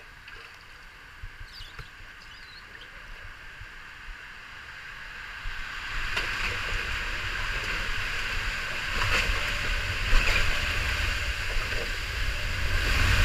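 Rushing water and a raft sliding down a water-coaster flume, faint at first and growing louder from about five seconds in, with a low rumble under it.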